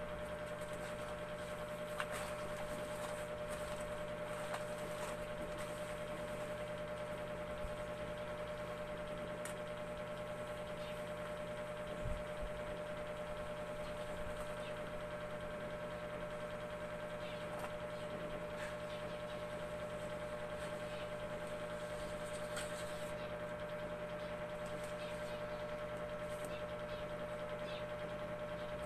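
A steady electrical hum made of several fixed tones, one mid-pitched tone standing out, unchanging throughout, with a few faint clicks from handling the packaging.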